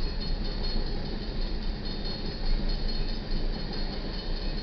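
Empty steel coal hopper cars rolling past at speed: a steady rumble and clatter of wheels on rail, with a thin high tone coming and going above it.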